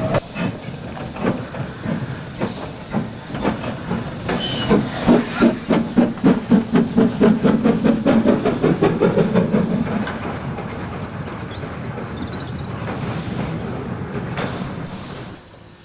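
Devonport Dockyard saddle tank No. 19, a small steam locomotive, pulling away. Its exhaust beats start slow and quicken to about three a second, then give way to a steady hiss of steam, with two sharper hissing spells near the end.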